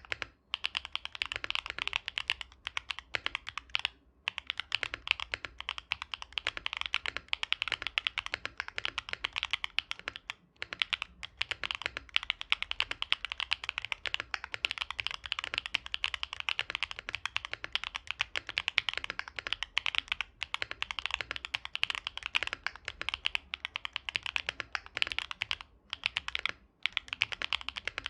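Fast, continuous typing on a Mode Envoy mechanical keyboard with MMD Princess tactile switches, GMK keycaps and an aluminium plate: a dense run of high, clacky keystrokes with a few brief pauses.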